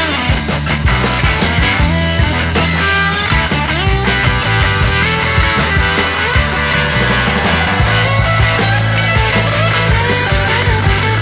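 Background music: instrumental rock with guitar and a steady bass line.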